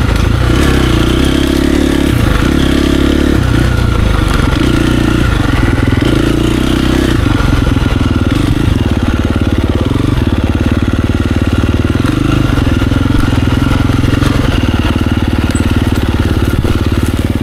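Dirt bike engine heard from the rider's onboard camera, running hard, its note rising and falling as the throttle opens and closes through the trail's turns. It cuts off suddenly at the very end.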